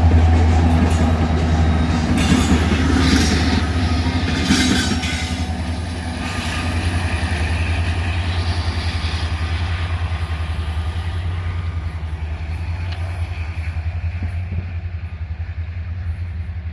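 Freight train rolling past with the steady low drone of its diesel locomotives, the remote units pushing at the rear; loudest over the first few seconds, then fading gradually.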